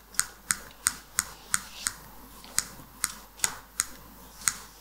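A series of sharp, dry clicks, about two to three a second, at fairly even spacing.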